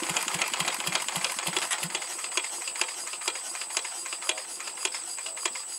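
Old single-cylinder diesel engine, just spun up by a belt from an electric motor, running with a rapid mechanical clatter. Heavier thumps at a few a second for about the first two seconds, then lighter, quicker ticking.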